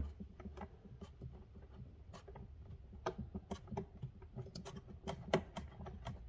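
Scattered light clicks and taps of a small nut and screw being handled and fitted by hand onto a plastic tool-box handle, with a few sharper clicks around three seconds in and just after five seconds.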